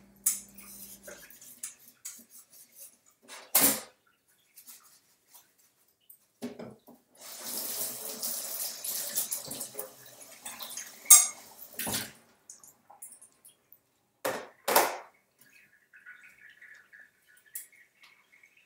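Kitchen sink faucet running into the basin for a few seconds, with sharp clinks and knocks from things handled at the sink before and after.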